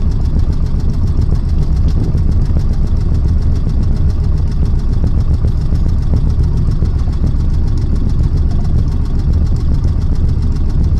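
A fishing boat's engine running steadily, a loud, even low drone.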